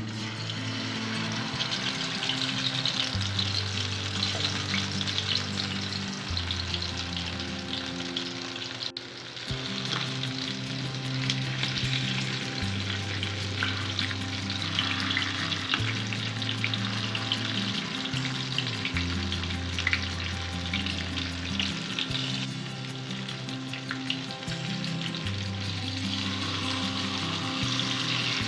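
Masala-marinated quail frying in hot oil in a pan, a dense, steady sizzle and crackle of the spice-and-curd coating in the fat.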